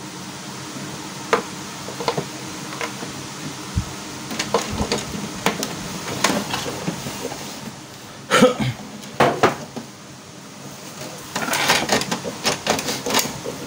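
Plastic clicks and knocks from handling an HP DeskJet 2135 inkjet printer as its cartridge access door and lid are shut. There are a few louder knocks a little past the middle and a run of quick clicks near the end.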